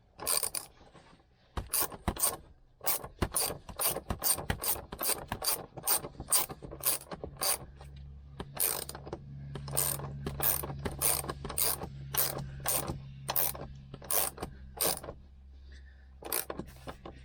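Ratchet wrench with a 14 mm socket clicking in quick repeated strokes, about two to three clicks a second with short pauses, as a seat-belt anchor bolt is turned. A steady low hum joins in the background about halfway through.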